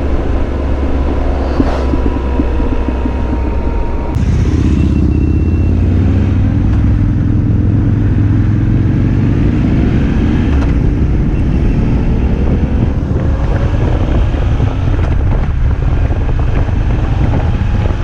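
Triumph Tiger Explorer 1200's three-cylinder engine running on the move, with wind rush. About four seconds in it gets louder and the engine note climbs slowly as the bike accelerates.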